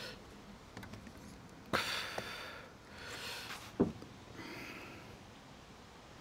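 A person sniffing or breathing close to the microphone a few times. Two sharp clicks come about two and four seconds in, the first the loudest.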